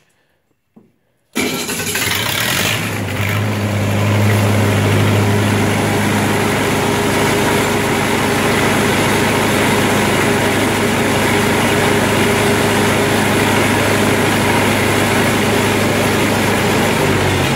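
Lincoln SA-200 welder's gasoline engine starting on its switch: after about a second of quiet it catches almost at once, then settles into steady, even running.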